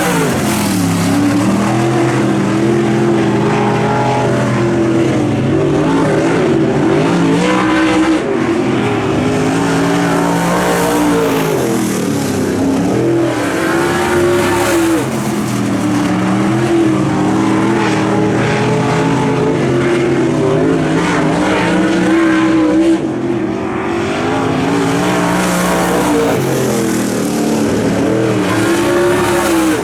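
Dirt track race car engine running hot laps, revving up on the straights and backing off into the turns, its pitch rising and falling over and over every few seconds.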